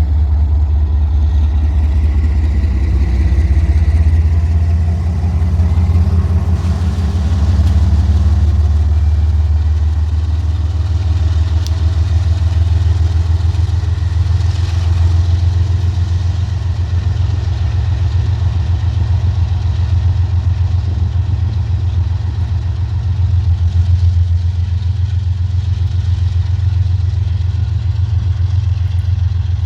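Diesel locomotive engine running steadily close by, a loud, even low rumble.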